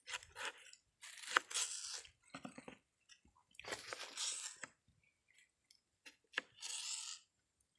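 Kitchen knife slicing through a tomato on a wooden cutting board: several short, wet crunching cuts, with a sharp click of the blade on the board about six and a half seconds in.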